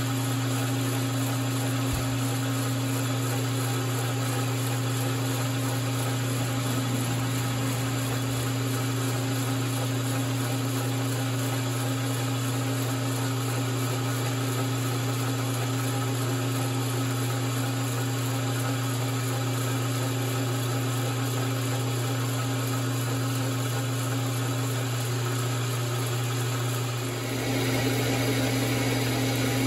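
Logan 922 flat-belt lathe running under power while a carbide-insert tool takes a light facing cut across the end of the spinning part: a steady motor hum under an even cutting and drive noise, a little louder near the end.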